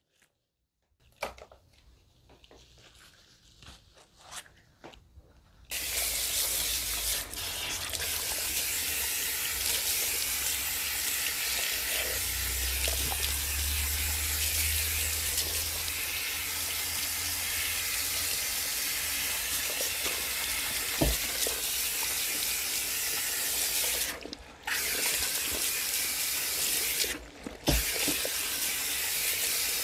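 Salon backwash-sink hand sprayer running water over a client's hair, rinsing it after the softening stage of a straight perm. It is a steady hiss that starts about six seconds in after a few faint rustles, and it cuts out briefly twice near the end.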